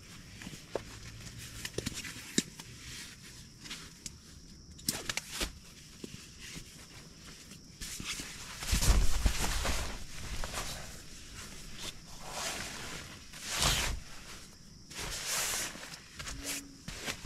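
A folding camp mattress being set down and unfolded on a plastic tent groundsheet: rustling and crinkling of the plastic and fabric, with a heavy soft thump about nine seconds in and another near fourteen seconds as the sections drop flat.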